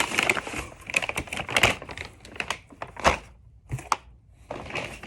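Packaging being handled: rustling and crackling with a quick run of sharp clicks and taps, and one louder knock about three seconds in.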